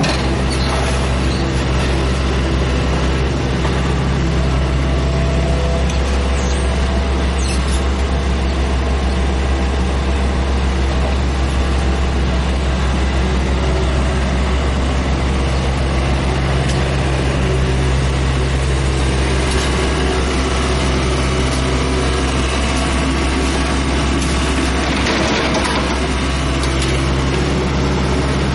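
Kobelco hydraulic excavator's diesel engine running steadily while it digs, its note shifting a few times as the hydraulics take load, with a few brief knocks.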